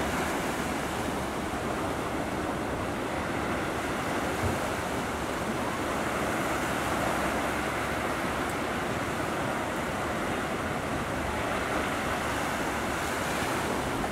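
Steady rush of ocean surf breaking and washing in, with some wind on the microphone.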